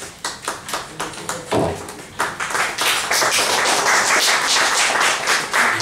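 Audience applauding at the end of a recited poem. It starts as a few scattered claps and builds into steady, dense applause about two seconds in.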